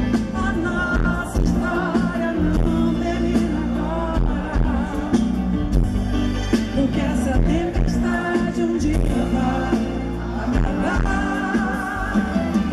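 Live band playing a pop ballad while a woman sings into a microphone, her voice wavering and held over a full, steady accompaniment.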